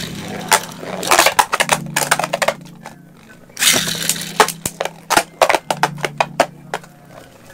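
Two Beyblade Burst spinning tops, one fitted with a homemade rubber Xtreme driver tip, battling in a plastic-lined stadium bowl. Repeated clusters of sharp clicks and clattering as they collide and skid across the plastic.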